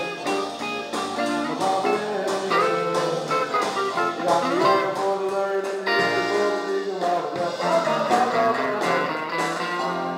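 Live rock band playing an instrumental passage: electric guitar prominent, with keyboard and drum kit.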